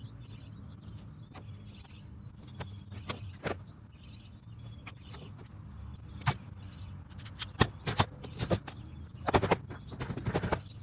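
Scattered sharp knocks and clacks of wooden fence pickets being worked on, a few at a time and more often in the last few seconds, over a low steady hum and faint bird chirps.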